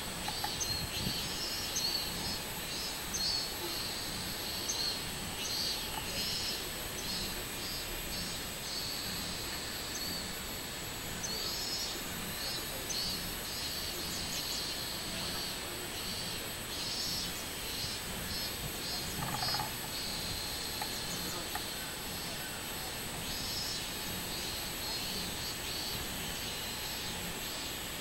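Robust cicadas (minmin-zemi) calling: rhythmic pulsing phrases that start and stop in bouts with short pauses between them, over a steady high-pitched whine.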